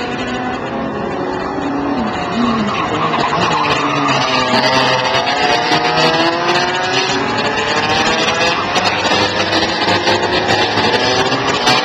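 Several racing go-kart engines buzzing around the circuit at once, each pitch rising and falling as the karts accelerate and slow through the corners. The sound grows louder about three seconds in.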